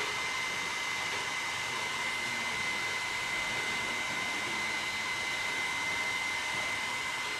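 Leister Sonora S1 hot air tool blowing steadily: a rush of air with a steady high whine from its fan.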